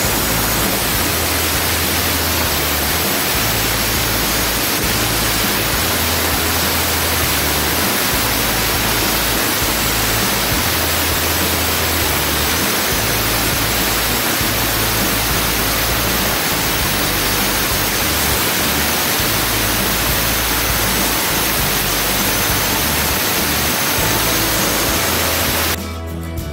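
Angle grinder with a diamond blade cutting through a granite slab: a loud, steady hiss of the blade grinding stone that cuts off suddenly near the end.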